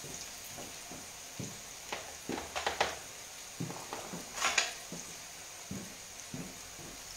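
Frappe (strips of sweet dough) frying in hot oil in a frying pan: a steady sizzle with irregular pops and crackles, thickest a couple of seconds in and again about halfway through.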